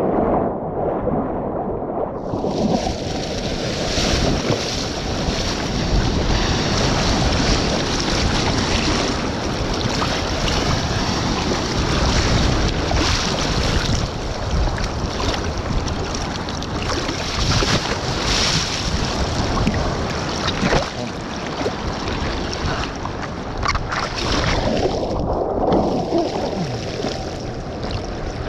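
Loud, steady rush of wind buffeting the microphone during a ride, muffled for a couple of seconds at the start and again around the 25-second mark.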